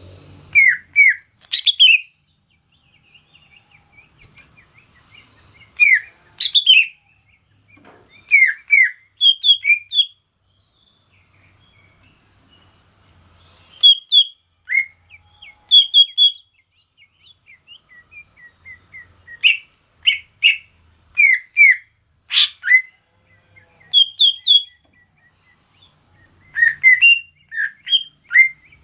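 Green leafbird (cucak ijo), an untrained 'bahan' bird, singing short bursts of quick sliding chirps and whistles, a phrase every few seconds. A steady high hiss runs underneath.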